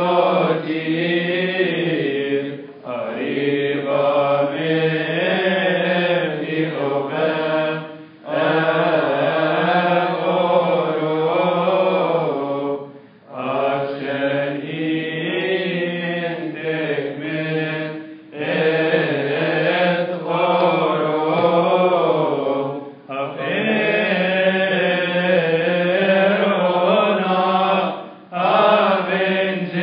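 Coptic Orthodox liturgical chant: voices singing a hymn in long, wavering melodic phrases, each about five seconds long with a brief pause for breath between them.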